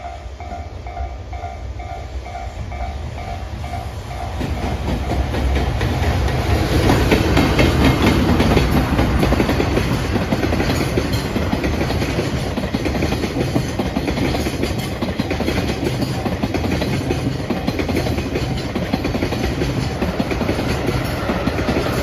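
Japanese level-crossing warning bell ringing in a steady beat of about two strokes a second, then from about four seconds in a JR Freight EF210-300 electric locomotive and its train of tank wagons passing close by: a loud rumble of wheels on the rails that peaks a few seconds later and carries on as the wagons go by.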